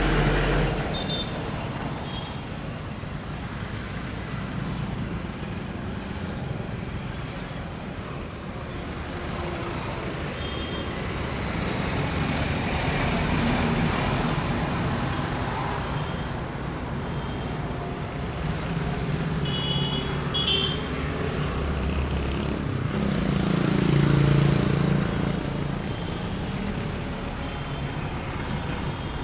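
Street traffic noise: a steady rumble of passing vehicle engines that swells louder near the middle and again about three-quarters of the way through, with a few short high-pitched tones around two-thirds in.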